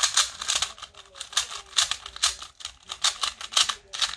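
MoFang MF2 2x2 speed cube being turned quickly by hand: rapid, uneven plastic clicking and clacking as the layers snap round, with a few brief pauses.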